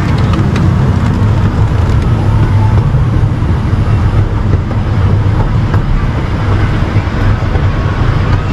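Casey Jr. Circus Train cars rolling along the track, heard from the back car: a loud, steady low rumble.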